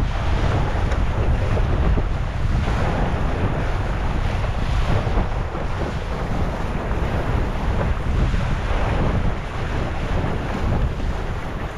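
Wind buffeting the microphone in a steady low rumble, over water rushing and splashing along the hull of a Sunfish sailboat under way in choppy conditions.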